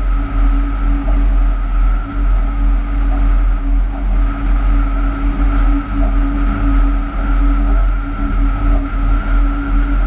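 Cab noise of a Bombardier TRAXX class 186 electric locomotive running light: a steady low rumble of wheels on rail, with a constant hum and a higher steady whine over it.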